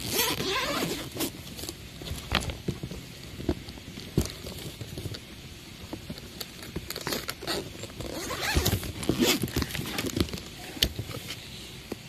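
Irregular rustling and scraping with scattered sharp clicks.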